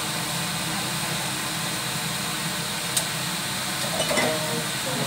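Steady hiss of chicken feet and pork braising in soy sauce in a wok, with a sharp click about three seconds in and a few light clinks about a second later.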